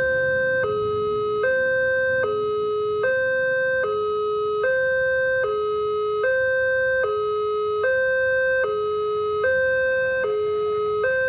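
Electronic railway level-crossing warning alarm sounding a steady two-tone hi-lo signal. It switches between a higher and a lower pitch about every 0.8 seconds, warning that a train is approaching and the crossing barriers are closing.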